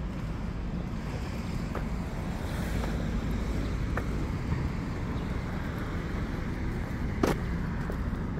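Steady road traffic noise with wind on the microphone, and a sharp click about seven seconds in.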